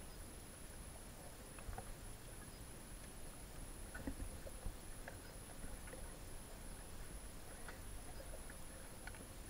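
Faint underwater ambience picked up by a submerged camera: a low steady rumble with scattered small clicks and ticks.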